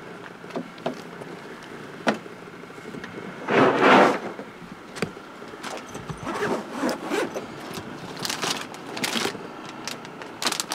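Hands rummaging through fishing tackle to swap a worn jig trailer: a scatter of rustles, clicks and scrapes, with one louder rushing scrape about four seconds in.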